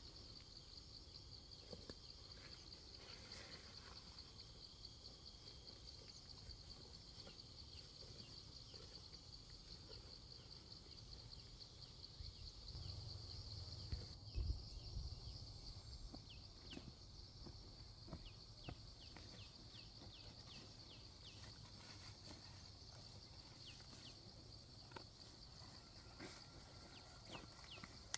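Faint, steady chorus of insects trilling at one high pitch, with scattered short high chirps in the second half. A few low thumps come about halfway through.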